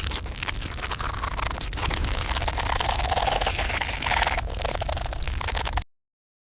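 Horror sound-effect track for a ghost apparition: a dense crackling, static-like noise with many sharp clicks and swelling mid-range tones, which cuts off abruptly near the end into dead silence.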